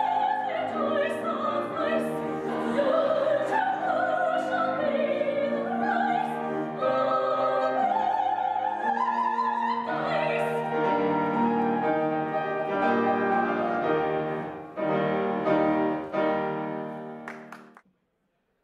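Soprano singing an opera aria with piano accompaniment, her voice full of vibrato; the music stops abruptly near the end.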